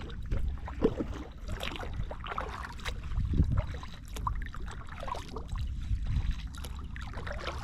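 Water lapping and trickling around a fishing kayak, with many small clicks and knocks on the hull and a steady low rumble underneath.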